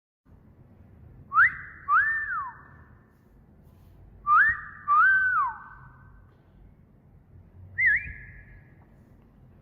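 Two wolf whistles, each a quick rising note followed by a longer note that rises, holds and falls away, with a short rising whistle near the end. Each whistle leaves a fading echo.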